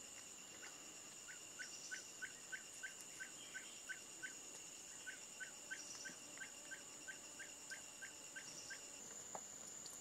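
Faint tropical forest ambience: insects buzzing steadily in two high pitches, with a run of short, evenly spaced pips about three a second that pauses briefly near the middle and stops about nine seconds in.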